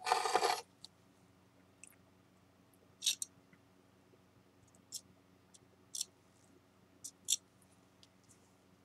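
A spatula and ceramic shards being handled while shinurushi-and-flour paste is worked onto a broken edge: a brief scraping rustle at the start, then about five short, faint clicks and scrapes.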